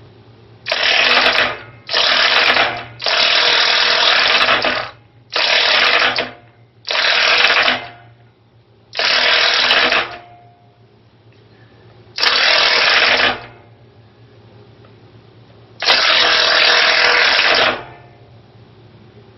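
Hyper-Tough corded half-inch impact wrench hammering on a seized water-heater anode rod hex through a 1-1/16 inch socket. It runs in eight separate bursts of rapid impacting, from under a second to about two seconds each, with short pauses between. The rod has not yet broken loose.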